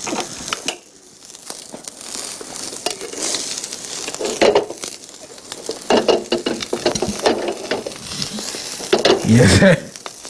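An egg frying in oil in a pan, giving a steady sizzle, with scattered short clicks.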